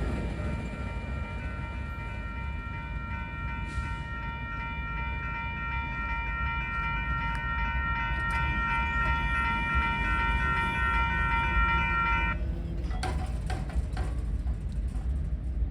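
Railroad crossing bell ringing steadily over the low rumble of the departing locomotives, then cutting off abruptly about twelve seconds in as the crossing clears.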